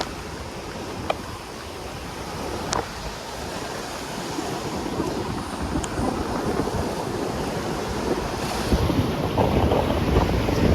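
Sea surf washing onto a sandy beach, with wind buffeting the microphone. The wind rumble grows louder over the last few seconds, and there are a few faint clicks.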